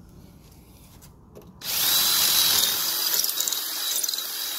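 Cordless drill starting up about a second and a half in and boring steadily into a brick wall with a drill bit, with a steady high whine over the grinding, as the hole is widened to take a wall anchor.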